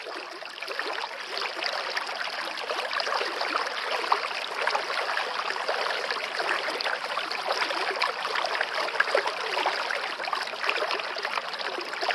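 Water from a waterfall rushing and splashing in a steady hiss, swelling up over the first second.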